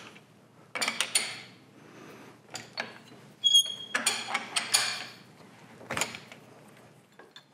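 Camlock key turning the cam locks on the spindle nose of a Monarch Series 60 lathe to release the chuck: a series of sharp metallic clicks and clunks, with a short metallic ring about three and a half seconds in.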